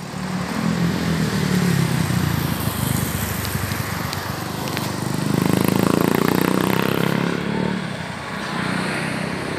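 Street traffic: vehicles driving past at a city intersection, engines humming over tyre and road noise. It is loudest about five to seven seconds in, as a vehicle passes close, then eases off.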